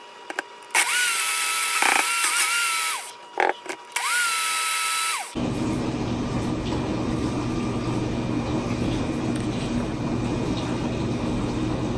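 Personal blender crushing ice into a smoothie, run twice. Each time the motor spins up to a steady high whine and drops off when it stops: first for about two seconds, then for just over a second. After that comes a steady low hum from the dishwasher running.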